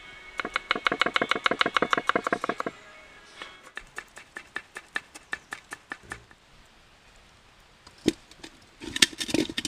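Kitchen knife chopping on a wooden cutting board: a rapid, even run of strokes, then slower, lighter ones, with a single knock and then a cluster of knocks near the end.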